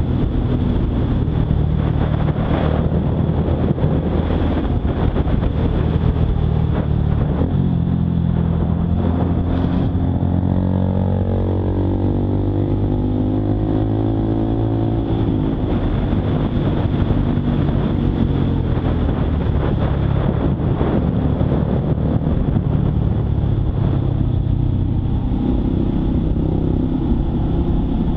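Honda Monkey 125's single-cylinder engine running while riding, over a steady rumble of wind and road noise. Its pitch climbs for a few seconds around the middle as the bike accelerates.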